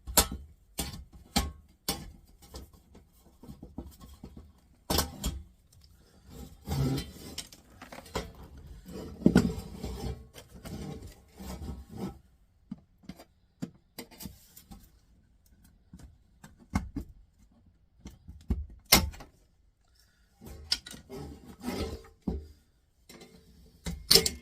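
Scattered sharp clicks and knocks with stretches of scraping, as plastic parts are pried and pulled off a stereo tuner's metal base by hand.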